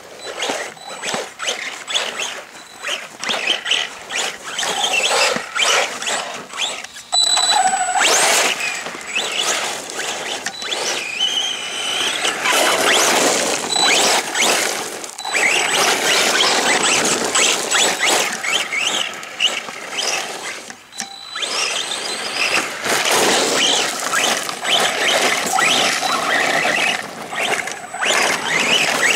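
Arrma Senton 3S BLX RC short course truck driving through mud and puddles. Its brushless motor whines up and down with the throttle, over tyres spraying water and mud, in surges with brief lulls.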